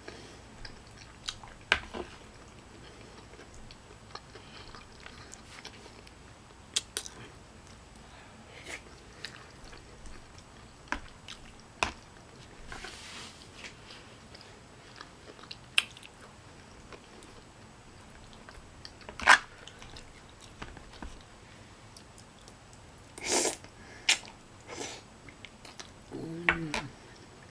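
Close-up eating sounds: a person chewing and eating chicken gumbo with a spoon, with scattered sharp clicks, a few short noisy bursts, and a brief low hum near the end.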